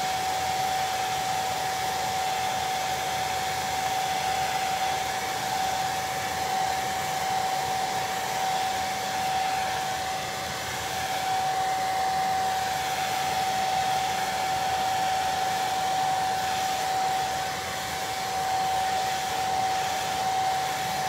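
Handheld hair dryer running steadily: a rush of air with one steady whine.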